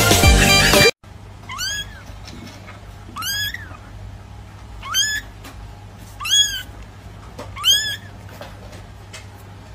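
A second of loud music cuts off abruptly. Then a young kitten meows five times, about one and a half seconds apart; each is a short, high call that rises and then falls. A faint steady low hum runs underneath.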